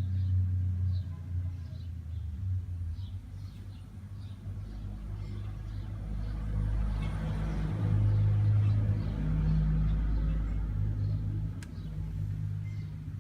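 Car engine idling steadily, with its sound swelling louder for a few seconds in the middle.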